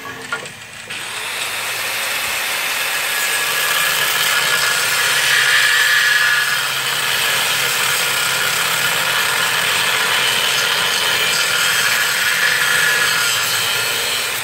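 Handheld corded power tool cutting through a wooden board. The steady cutting noise builds about a second in and runs on under load.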